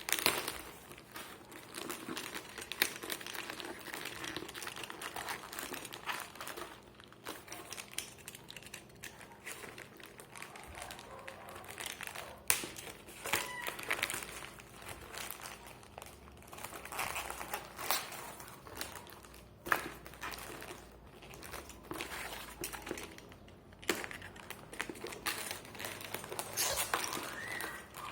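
Plastic packaging crinkling and rustling as an electric mosquito killer is unpacked by hand, with scattered sharp clicks and knocks.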